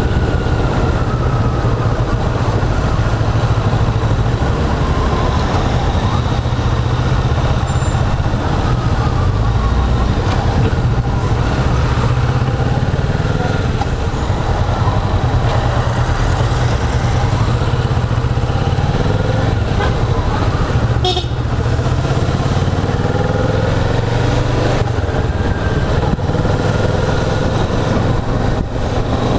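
Kawasaki Vulcan S 650's parallel-twin engine running under way in city traffic, its pitch rising and falling with throttle and gear changes, heard from the rider's seat.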